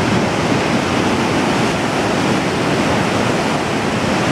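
Steady, loud rush of Gullfoss, a large two-tiered waterfall on the Hvítá river, its falling water making an even wash of noise that does not change.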